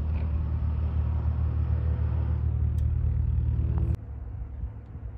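Cessna 172 Skyhawk's engine and propeller at high power on the runway, a steady low drone. It cuts off abruptly about four seconds in, leaving a fainter rumble.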